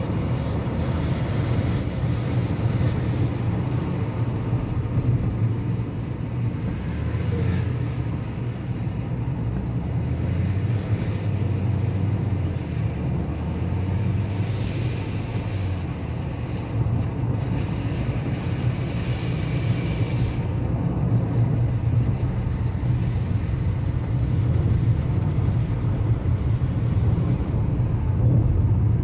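Steady low rumble of a car's engine and tyres on a rain-soaked road, heard from inside the cabin, with the hiss of water off the wet road swelling three times into louder spray.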